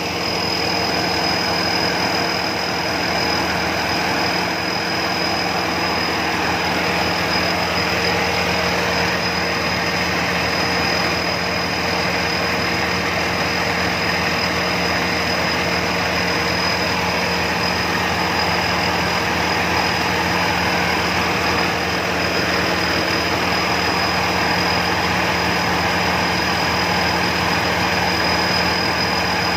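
Rice combine harvester engine running steadily, with a dense mechanical clatter and a thin, steady high whine over it.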